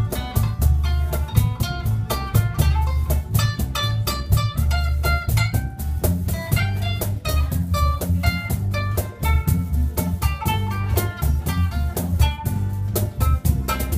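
Small live band playing an instrumental number: two acoustic guitars plucking and strumming over an electric bass line, with a cajón keeping the beat.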